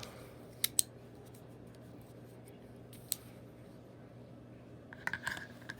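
A few sharp clicks and small handling noises from Leatherman Raptor folding shears being worked out of and into their holster case. A pair of clicks comes close together early, one more about three seconds in and a small cluster near the end. A steady low hum runs underneath.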